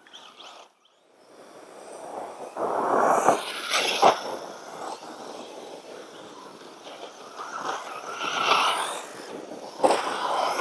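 Electric RC car running over a dirt jump track, its tyres scrabbling on loose dirt as it comes closer and moves away, with sharp knocks about three and four seconds in.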